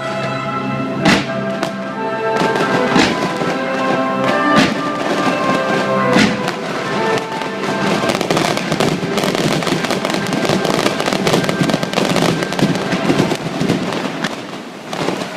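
Aerial fireworks bursting over the show's music: a few single sharp bangs in the first half, then a dense run of rapid bursts through the second half, typical of a show's closing barrage.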